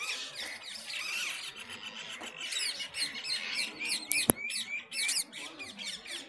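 Many birds chirping and squawking together in quick overlapping calls, with one sharp click about two-thirds of the way through.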